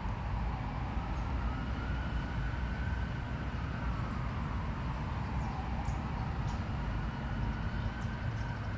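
Steady low background rumble with a faint tone slowly rising and falling, and a few faint ticks.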